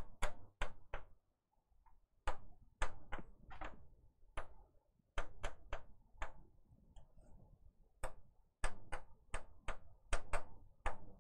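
Pen tapping and clicking against a board while writing: about two dozen sharp, irregular taps, some in quick runs, with a short pause near the middle.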